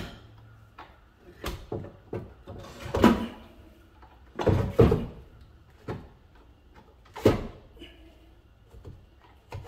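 Irregular metal knocks and clanks as a wrench and cable lugs are worked on the terminals of RV chassis batteries in a slide-out metal tray, the loudest knocks about three and five seconds in and another near seven.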